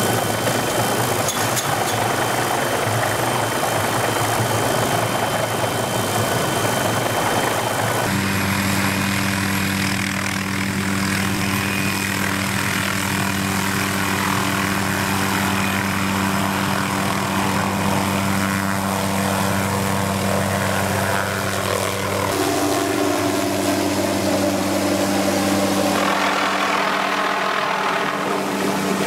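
Helicopter tree-saw rig on an MD 500 running steadily on the ground. A broad rushing noise with a thin high whine changes about 8 seconds in to a steady low hum, which shifts slightly twice near the end.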